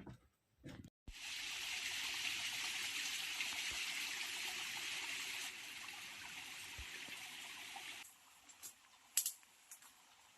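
Steady rush of flowing water that cuts off abruptly about eight seconds in, followed by a few faint clicks and rustles.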